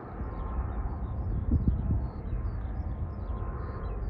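Distant low rumble of a departing Airbus A330-300's Rolls-Royce Trent jet engines as it climbs away, with a brief louder surge about a second and a half in. Small birds chirp repeatedly over it.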